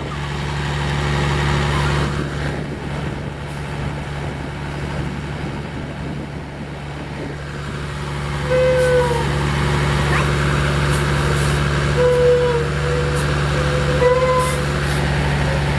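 Heavy log truck's diesel engine running under load with a steady low drone as the loaded truck crawls over a dirt track. A few short high-pitched tones sound over it in the second half.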